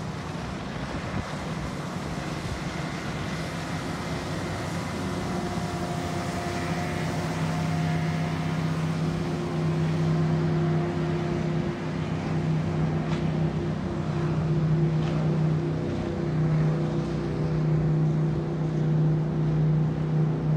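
Several motorboats running fast on a river: a steady engine drone that grows louder through the stretch, with wind noise on the microphone.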